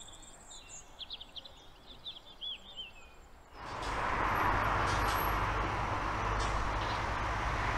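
A small bird chirping quietly, with a run of quick, high, warbling chirps. About three and a half seconds in, the sound changes abruptly to a steady, louder rushing noise with a low rumble underneath.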